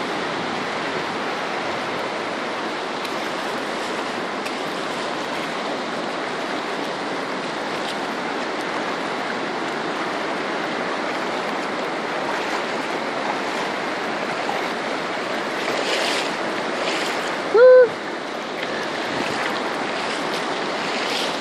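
Muddy floodwater of a swollen river rushing past in a steady, even roar of moving water. A single short, loud call cuts through it about three-quarters of the way in.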